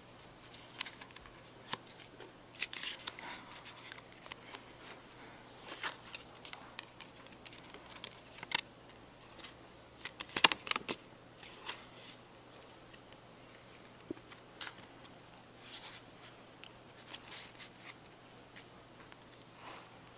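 A deck of playing cards being handled: scattered short papery slides, snaps and taps as cards are spread, cut and squared, with the loudest cluster of snaps about ten seconds in.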